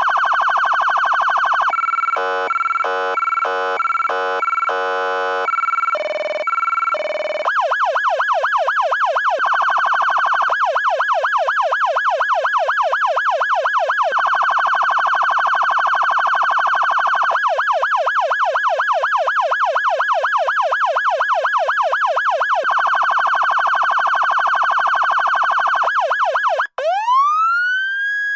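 Federal Signal Touchmaster Delta electronic siren, played through a 100-watt siren speaker, cycling through its tones. It runs fast up-and-down yelp sweeps, a stretch of stepped priority tones jumping between several pitches, and faster, narrower warbling sweeps. Near the end it cuts out briefly, then gives one smooth rising sweep.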